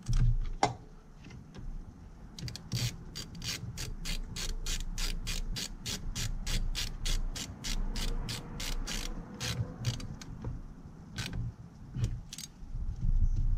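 Hand socket ratchet clicking in a steady run of about four clicks a second as a nut on the truck's battery terminal is turned, starting a couple of seconds in and stopping near the end.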